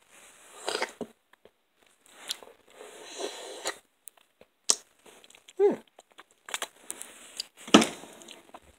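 Crisp crust of a baked Red Baron Supreme pizza crunching and tearing as slices are cut and pulled apart on its cardboard, with crinkling and scattered clicks and a louder crunch near the end.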